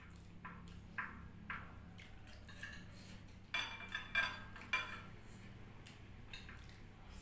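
Eating utensils clinking against dishware during a meal of noodles: a couple of light clicks, then a quick run of louder clinks about halfway through.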